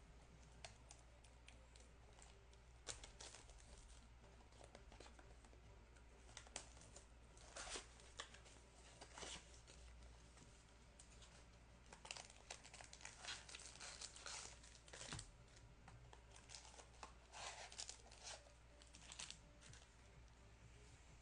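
Trading card pack wrappers being torn open and crinkled by hand, in scattered short, faint rustling and crackling bursts.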